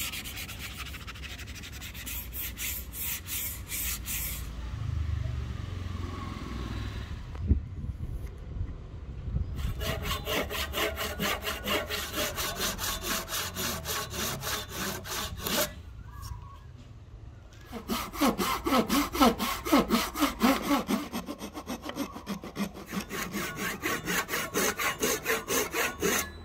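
Sandpaper on a hand-held pad rubbing back and forth over a rosewood axe handle for the first few seconds, then a fine-toothed hand saw cutting a wedge slot into the top of the rosewood handle in quick, even strokes, about three a second, in two long runs with a short pause between. In the second run the blade rings a little with each stroke.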